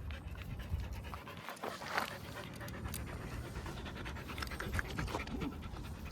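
Dog panting in quick, short breaths close to the microphone, with a low rumble underneath.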